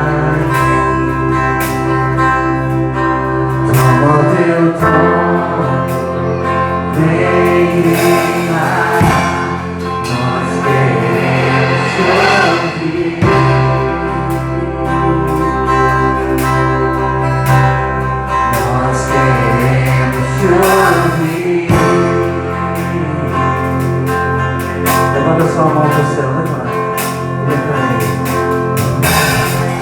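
Gospel worship song: singing over sustained instrumental accompaniment, with a steady low bass.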